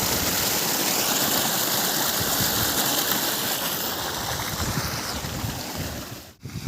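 Steady rushing noise that eases slowly, with a brief dropout near the end.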